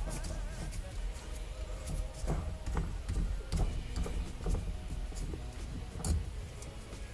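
Scattered light clicks and knocks from the shift knob being twisted and unscrewed off the shifter, over quiet background music.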